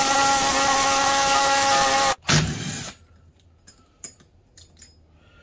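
Power tool running for about two seconds, then again briefly, turning a bolt that draws a press-fit pulley onto a new power steering pump's shaft.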